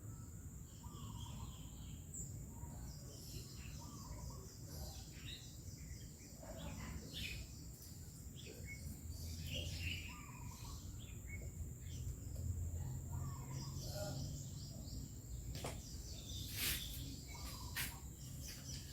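Birds chirping on and off over a low steady background rumble and a thin high steady tone, with a few sharp clicks near the end.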